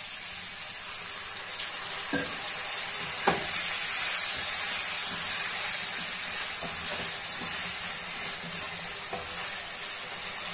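Potatoes, tomatoes and masala sizzling in a hot kadai, a little water just added to the pan, while a spatula stirs them. The spatula knocks against the pan twice, about two and three seconds in.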